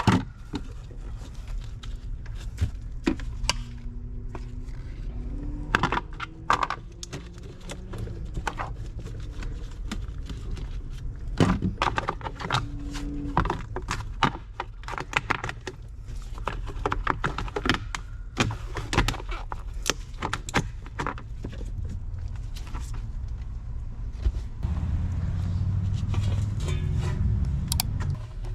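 Hand tools and metal parts being handled: irregular clicks, clinks and knocks, over a low steady hum that grows louder near the end.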